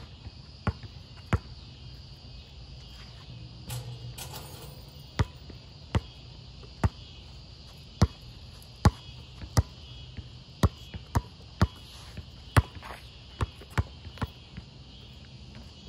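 Basketball dribbled on an outdoor asphalt court: sharp single bounces at an uneven pace, now and then two or three in quick succession.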